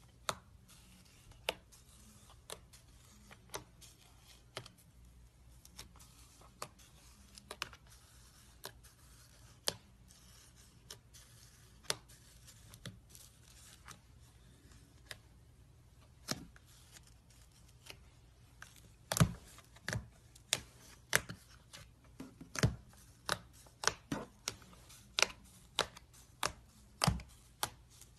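Slime being pressed and poked, giving sharp clicking pops. They come about once a second at first, then faster and louder in the last third.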